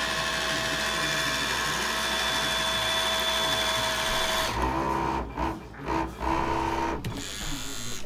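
Portable mini turbine washer's small electric motor running in soapy sink water in its back-and-forth wash mode: a steady whir with a constant high tone. About halfway through, the whir cuts off abruptly, leaving a quieter hum that stops and starts several times.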